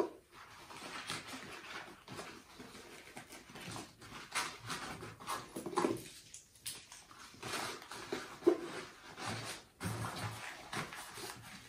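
Irregular rustling and soft handling noises as paper cards, a lanyard and a fabric pouch are packed away by hand.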